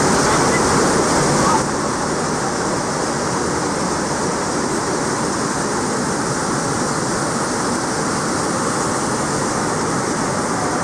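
Rushing water in a canyon, a loud steady roar that starts abruptly and eases slightly about a second and a half in.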